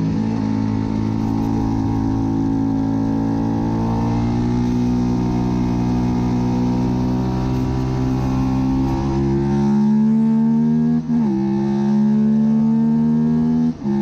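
Suzuki SV650 race bike's V-twin engine accelerating hard, its pitch climbing slowly through a long gear. Two quick upshifts, one about eleven seconds in and one near the end, each a brief dip before the engine pulls again.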